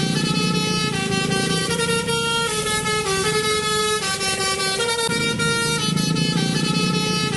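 A musical horn plays a tune of held notes that step up and down in pitch, sounded as the horn of the yellow Tayo bus.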